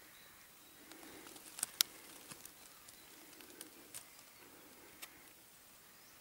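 Faint scattered clicks and light rustling over a quiet bush background, with two sharper ticks about a second and a half in.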